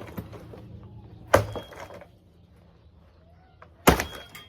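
Two heavy blows from a swung demolition tool into an old hot tub's panels, about two and a half seconds apart, each a sharp crack with a brief metallic ring.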